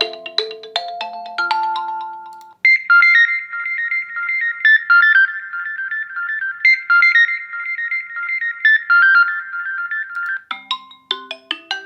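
Xiaomi POCO F2 Pro ringtones playing one after another. A melodic tune fades out, then after a short break a high-pitched ringtone trills rapidly between two alternating notes for about eight seconds, and near the end a different, lower ringtone melody begins.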